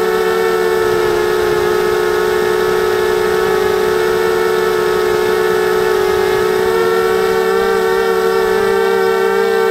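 250-size FPV quadcopter's motors and propellers whining steadily, heard up close from the onboard camera, the pitch wavering slightly with throttle.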